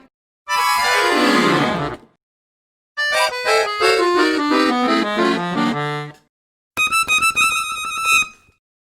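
Three short musical sound effects with silences between them. First comes a falling glide in pitch, then a run of notes stepping downward that ends on a low held note, then a steady, rapidly pulsing buzzy tone.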